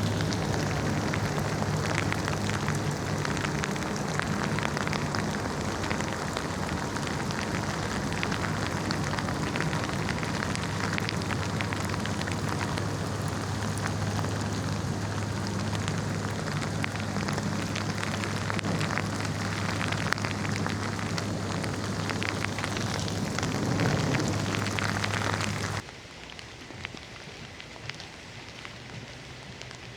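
Heavy rain pattering and splashing on hard surfaces in a dense patter of drops, with a steady low hum underneath. About 26 seconds in, the sound drops suddenly to a much softer, lighter rain.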